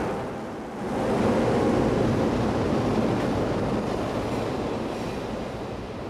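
A train passing close by: a steady rumble of wheels on rail that dips briefly, swells again about a second in, and then slowly fades.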